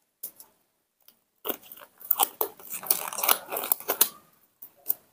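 Crinkling crackle of a thin white rubber glove being pulled on and worked over the fingers. A few scattered crackles come first, then a dense run of crackling lasting about two and a half seconds, then two last crackles near the end.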